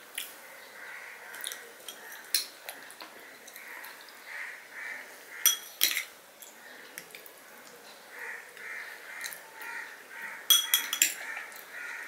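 Metal spoon clinking and scraping against a ceramic bowl of rice pudding, with sharp ringing clinks around the middle and a cluster of them near the end. Crows caw repeatedly in the background.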